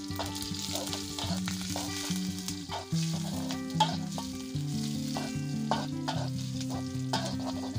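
Food sizzling in hot oil in a metal wok, stir-fried with a metal spatula that scrapes and knocks against the pan now and then. Background music with held low notes plays underneath.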